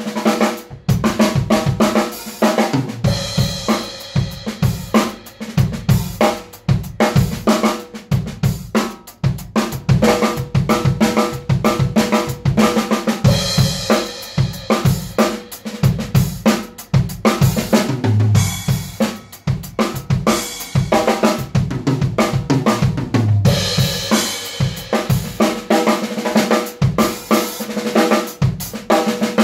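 Acoustic drum kit played continuously and loudly: snare and bass drum strokes with cymbals, and a cymbal crash about every ten seconds.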